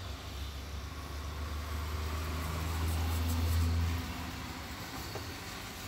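Low rumble of a vehicle engine, swelling for a couple of seconds and then dropping off suddenly about four seconds in.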